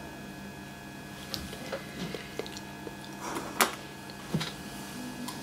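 A few light clicks and taps of plastic sugarcraft tools being handled on a cutting mat over faint room tone, the sharpest about three and a half seconds in.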